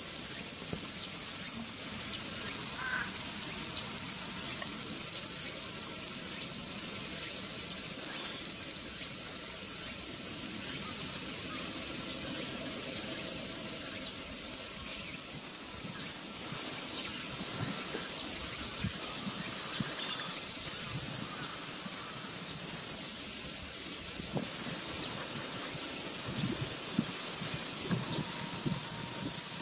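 A loud, steady chorus of insects shrilling without a break, high-pitched and unchanging throughout.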